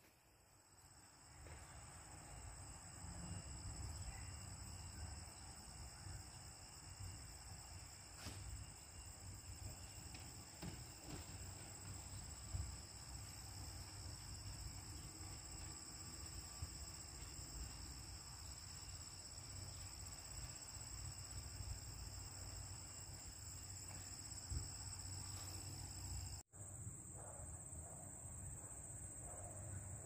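A steady, high-pitched chorus of insects, two unbroken tones held throughout, over an uneven low rumble of wind on the microphone. Near the end one of the two insect tones stops.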